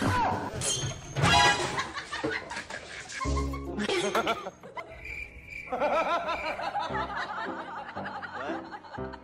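People laughing and giggling over background music, with a loud sudden noise about a second in.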